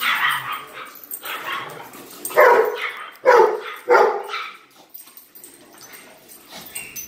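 Dog barking and yipping: softer yips at first, then three loud barks in quick succession a little over two seconds in, then quieter.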